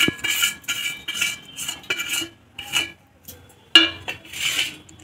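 A metal utensil scraping and clinking against a stainless steel plate and mixer jar as ingredients are pushed into the jar, with the steel ringing after each stroke. There is a sharp clink near the end.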